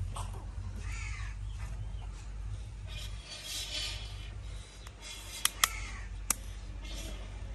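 Crows cawing over and over, with three sharp clicks a little after the middle.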